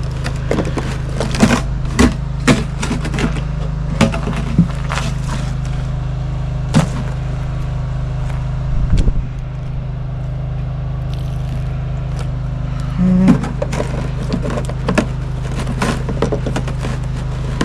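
Lawn tractor engine running steadily at idle, with repeated sharp knocks, clicks and scrapes close by as a gas can is handled and checked for how much fuel is left.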